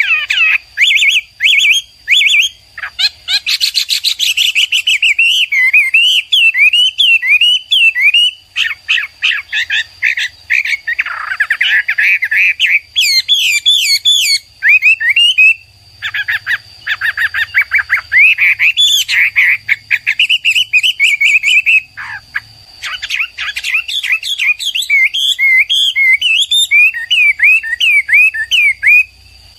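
Chinese hwamei (Garrulax canorus) singing: a long, loud, unbroken run of varied whistled phrases and rapid trills, stopping shortly before the end. A faint steady high tone sits behind it.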